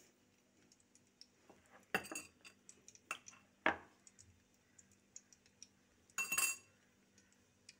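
A spoon clinking a few times on a bowl while scooping potato filling, with a short scraping rattle about six seconds in.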